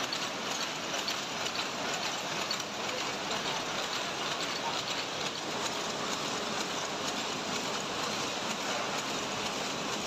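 An old sheet-metal strip-feeding machine running, a steady, dense mechanical clatter of rollers and moving metal parts with a fast, even rattle.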